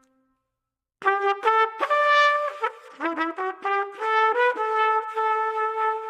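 Solo brass instrument playing a short melody of quick and held notes, starting about a second in after a moment of silence.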